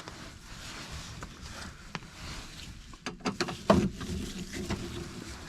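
Small screwdriver work on the sheet-metal outlet panel of a truck power inverter: faint handling noise with a few sharp little clicks, a cluster about three seconds in and another just before four, as the tiny screws are backed out.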